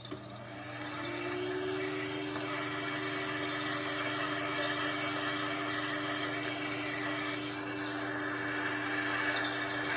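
Vacuum cleaner switched on: its motor spins up with a whine that rises in pitch over the first second or so, then runs steadily.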